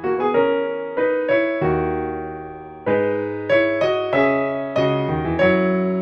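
Background music on a keyboard: struck notes that ring and fade, over low bass notes that change every second or so.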